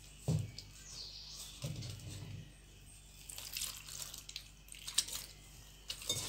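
A hand working a little water into gram flour in a steel bowl for a thick pakoda batter: soft, irregular wet squishing with a few light knocks.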